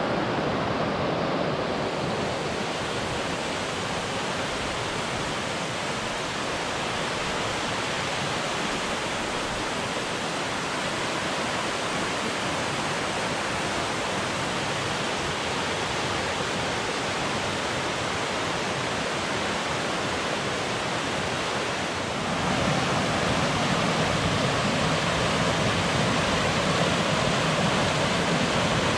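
Mountain creek rushing and splashing over rocks in a steady, even roar of white water. About three-quarters of the way through it becomes louder and fuller.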